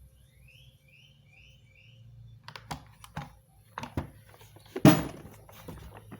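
A string of sharp clicks and knocks, irregularly spaced, the loudest about five seconds in. They follow a few faint, short rising chirps in the first second or so.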